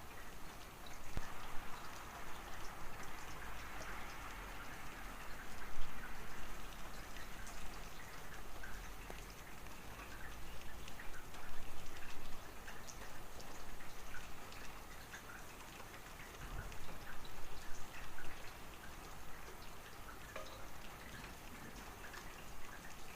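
Steady rain falling, with many individual drops pattering and ticking close by over a constant hiss.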